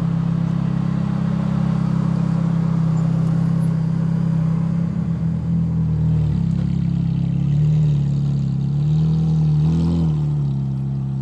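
Ferrari 430 Scuderia's V8 running steadily with its exhaust close by. From about six seconds in the engine note dips and rises several times with light throttle.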